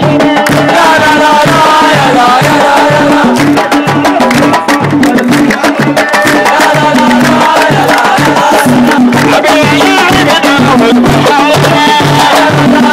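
Football supporters singing a chant together to a steady beat of hand-held frame drums, loud throughout.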